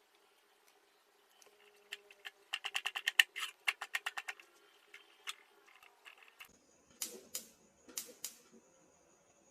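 A quick run of sharp mechanical clicks, about six or seven a second, lasting a couple of seconds. A few seconds later come four single clicks in two pairs, with a faint steady high whine underneath.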